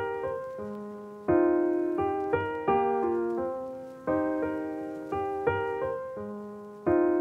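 Background music: keyboard chords struck about every three seconds, each fading away, with lighter single notes between them.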